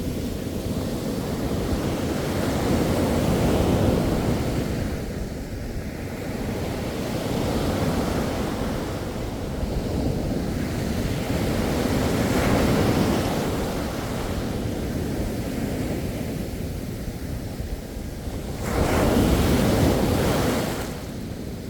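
Sea waves breaking and washing on the shore, the surf swelling and ebbing every few seconds, with a louder surge a few seconds before the end, and wind buffeting the microphone.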